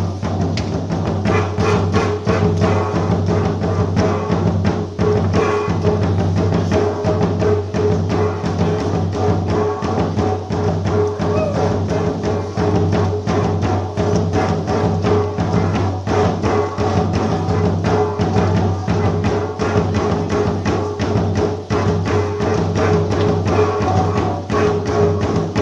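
Music with rapid, steady drumming over sustained low tones.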